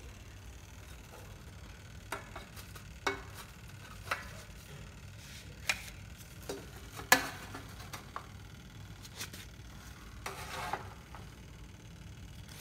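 Scattered light clicks and taps of a wooden spatula against an air fryer's mesh basket and a steel plate as cooked potato patties are lifted out and set down. The sharpest tap comes about seven seconds in, with a brief scraping rustle a few seconds later.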